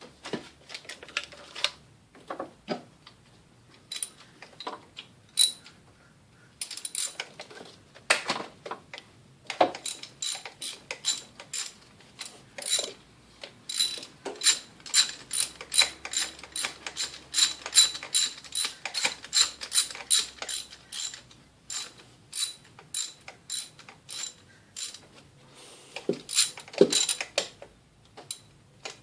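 Socket ratchet wrench clicking in quick runs of several strokes a second, with pauses and a few knocks of the tool on metal.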